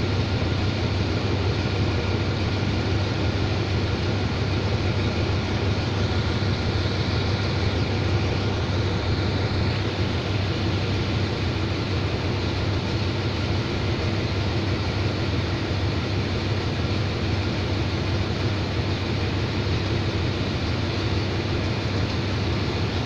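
Diesel locomotive engine idling steadily with a constant low hum while the train stands at the platform.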